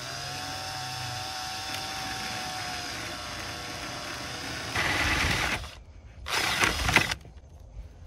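A power drill with a spade bit boring through a wooden longboard deck. The motor runs with a steady whine for about five seconds while the bit starts cutting. Then come two louder, rougher spells as the bit bites through the wood, and the drill stops about a second before the end.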